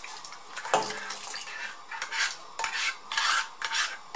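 A ladle scraping and knocking against a frying pan as cooked sofrito is scraped out of it into a soup pot: one knock about a second in, then a run of short scrapes.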